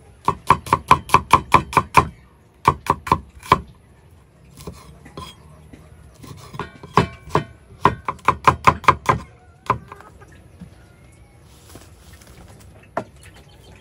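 Cleaver chopping red chillies on a wooden chopping board in quick runs of strokes, about five a second, with short pauses between the runs.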